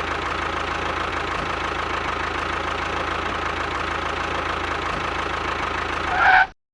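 A vehicle engine running steadily at idle. It cuts off abruptly near the end, right after a brief higher-pitched sound.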